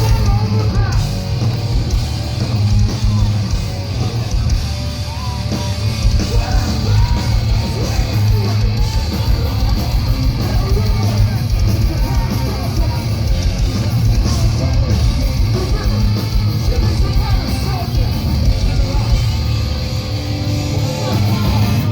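Live metalcore band playing loud, with heavy distorted guitars, pounding drums and yelled vocals, plus a continuous deep low end.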